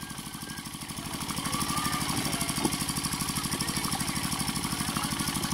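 A small engine running steadily with a rapid, even knocking beat, growing louder about a second in.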